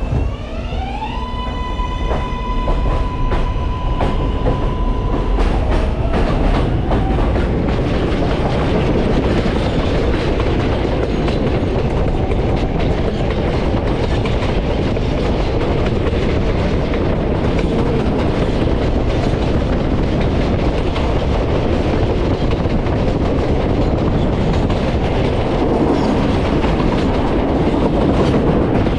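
Subway train pulling away, heard from inside the car: the traction motors' whine climbs in pitch over about the first second, holds one steady tone for a few seconds, then fades under the steady rumble of the car running on the rails as it gathers speed.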